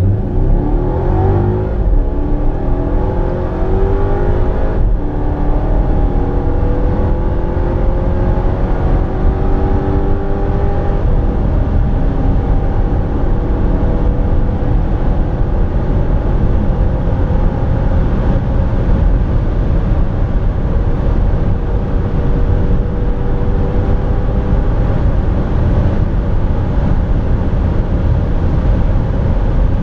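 Car engine under hard acceleration, heard from inside the cabin. Its pitch climbs and falls back at each automatic upshift as the car pulls from about 12 km/h to nearly 190 km/h. The rises grow longer and flatter in the higher gears.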